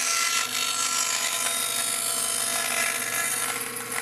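Bandsaw running and ripping a thin wooden strip, a dense steady cutting noise with a faint fixed hum.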